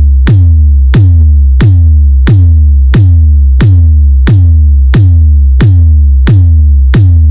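Electronic drum-machine bass hits played loud through a sound system for a sound check: a deep booming kick with a falling pitch, about three hits every two seconds at a steady pace.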